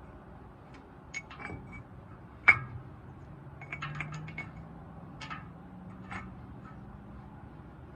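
Scattered metallic clinks and knocks from handling steel wood-chipper knives and tools, with one sharp clank about two and a half seconds in.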